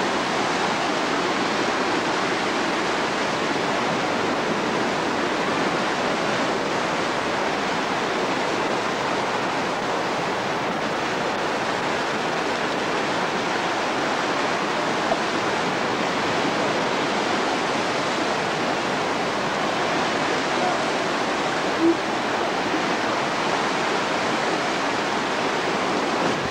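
Turbulent white-water surf churning against rocks, a steady unbroken rush of water.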